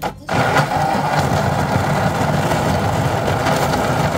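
Electric blender switched on and running steadily at full speed, grinding red onions, ginger, galangal, lemongrass and boiled dried chillies into a spice paste. The motor starts about a third of a second in.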